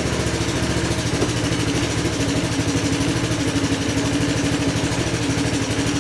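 Honda Helix CN250 scooter's 250cc liquid-cooled single-cylinder engine idling steadily while it warms up. It is running on fuel the owner suspects is bad gas.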